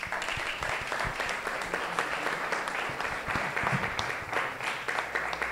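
Audience applauding: many hands clapping, breaking out suddenly and keeping up steadily.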